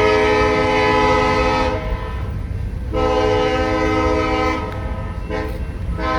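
Train air horn sounding a chord of several tones in blasts: long, long, short, then a long blast starting near the end, the grade-crossing signal pattern. A low rumble runs underneath.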